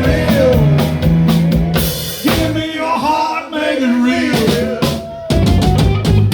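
Live rock band playing an instrumental passage: full drum kit with a melody line sliding in pitch over it. The level dips briefly about five seconds in, then the band comes back loud.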